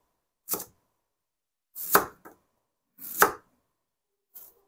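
Kitchen knife chopping a peeled white radish into chunks: four separate cuts about a second apart, the middle two loudest.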